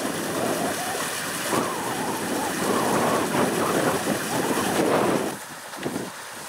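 Creek water rushing and splashing through a culvert into the intake hood of a Hydrobine water-powered pump, as a gusty noise. It turns noticeably quieter about five seconds in.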